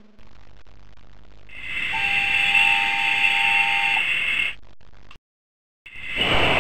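Train sound effect: a loud, shrill, steady squeal starting about one and a half seconds in, with a lower two-note tone held beneath it for about two seconds. It cuts off abruptly after about five seconds and, after a short silence, starts again near the end with a rushing rumble added.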